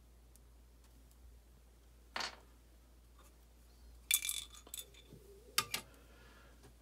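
Small metal clicks and clinks as a primer is picked from its batch and dropped into a reloading scale's pan. A single tap about two seconds in, then a quick cluster of clinks with a brief bright ring about four seconds in, and two more clicks a little later.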